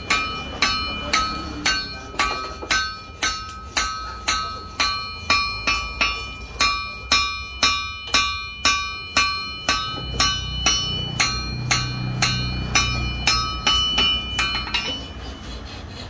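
Blacksmith's hand hammer striking work on an anvil at a steady pace of about two blows a second, each blow ringing. The hammering stops about a second before the end.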